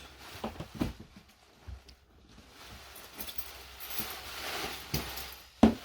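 Packaging being handled and rustled while a box is opened, with scattered light knocks and one sharp knock near the end.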